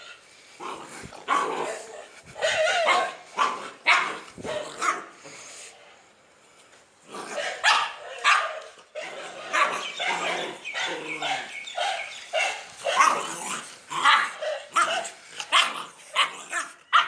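Dog barking repeatedly in short, sharp barks, with a lull of about a second and a half near the middle before the barking resumes faster and more densely.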